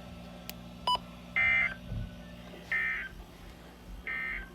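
Three short bursts of warbling data tones, about a second and a quarter apart: the Emergency Alert System's SAME end-of-message code, which closes an alert broadcast. A short click comes just before the first burst, over a steady low hum.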